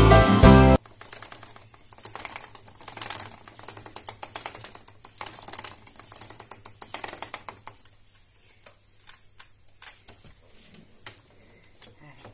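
Loud background music that cuts off about a second in, then a wooden spinning wheel running while plying wool, its flyer and bobbin rattling with rapid clicking in swells. After about eight seconds it slows and stops, leaving a few scattered ticks and knocks as the full bobbin is handled.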